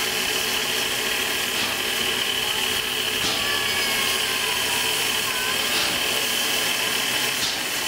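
Steam locomotive standing in steam, giving off a steady hiss with no chuffing rhythm.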